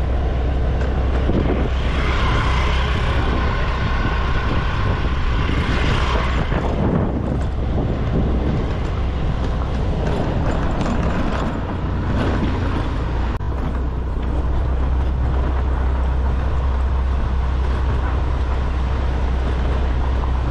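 Steady low rumble of a vehicle travelling along a highway. About two seconds in, a vehicle horn sounds for roughly four seconds.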